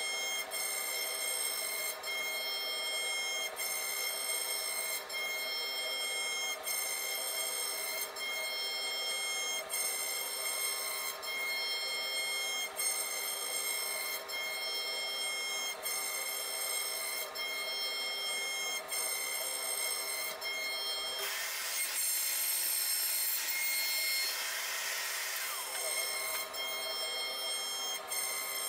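CNC router spindle running at a steady high whine while its tapered carving bit cuts into a softwood board, with a cutting hiss that dips briefly about every one and a half seconds. A louder rushing noise swells for several seconds near the end.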